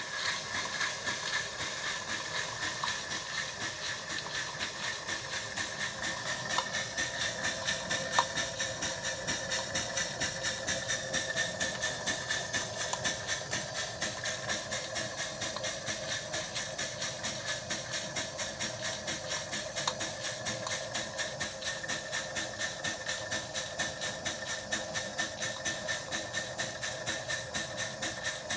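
Miniature gas-fired live-steam Case traction engine working hard under load from a belted Baker fan: rapid, even exhaust bark over a steady steam hiss, growing louder over the first ten seconds or so.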